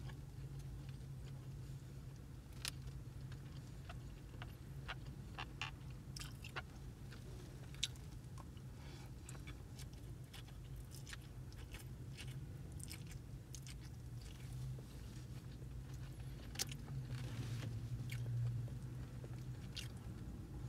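Close-up mouth sounds of a person eating chow mein noodles: chewing with many short, sharp clicks and smacks, over a steady low hum.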